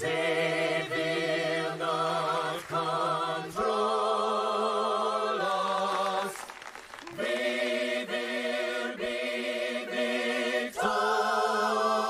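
A cappella choir singing held chords in close harmony with vibrato over a steady bass note. The chords change every second or two, with a short break about six seconds in.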